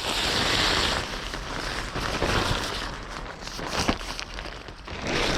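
Rustling and crinkling of a tent ground sheet being unpacked and spread out. The rustling is loudest in the first second, then comes and goes in shorter handling noises.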